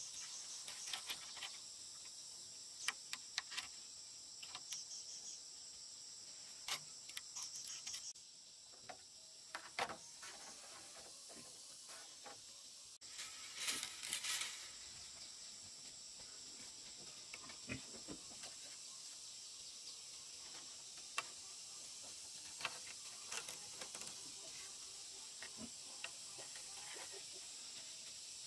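Steady high-pitched insect chorus, with scattered light clicks and rustles as bamboo poles are lashed together with thin binding; a louder rustle about halfway through.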